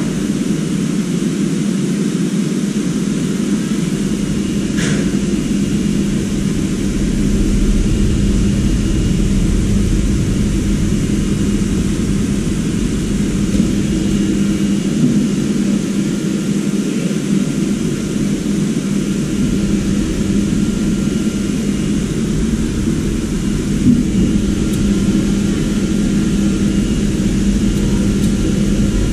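A motorised machine running steadily with a constant low hum and a rushing noise. Its deepest rumble drops away twice for a few seconds.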